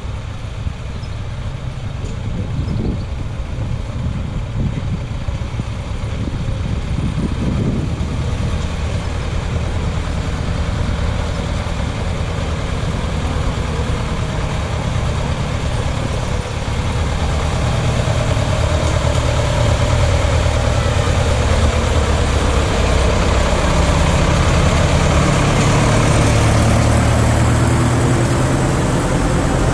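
Several vintage tractor engines running at low speed, getting steadily louder as the tractors approach and drive through a shallow ford. Water splashes and churns around their wheels near the end.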